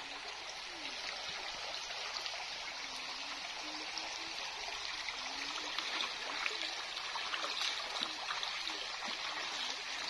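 Shallow river running over a stony bed: a steady rush and trickle of flowing water.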